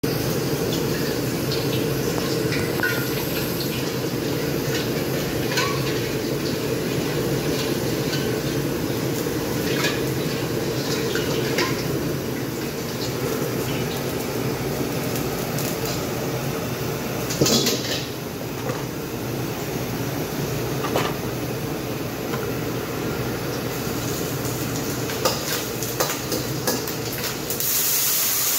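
Commercial wok range: a steady roar of gas wok burners and running tap water, with scattered clinks and clanks of metal ladles and pans and one louder clang a little past halfway. Near the end a loud hiss starts as frying begins in a wok.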